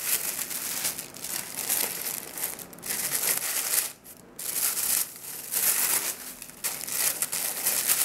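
Tissue paper rustling and crinkling as it is handled and pulled out of a cardboard shoe box, irregular throughout, with a brief lull about four seconds in.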